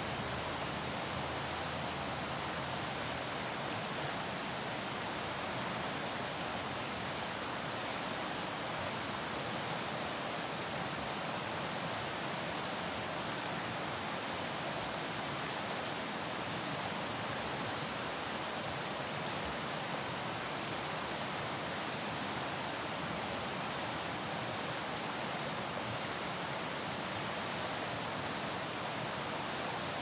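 Shallow rocky river rushing over rapids: a steady, even rush of white water.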